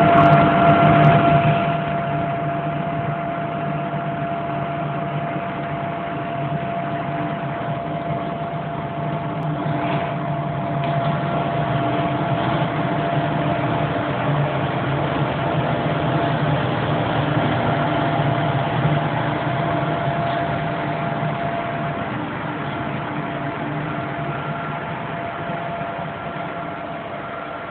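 Passenger train pulling slowly out of a station, heard from a coach window: a steady rumble of running gear with a constant electrical hum. It is loudest in the first second or so and fades gradually near the end.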